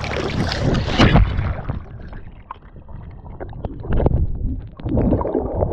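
Lake water splashing against the camera as it dips into the water. About a second and a half in, the sound turns muffled once the camera is under, leaving low sloshing and gurgling with a couple of surges.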